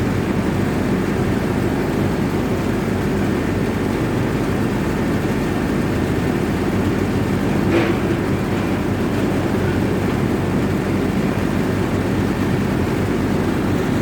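Excavator's diesel engine running steadily with a low, even drone, with one short clank about eight seconds in.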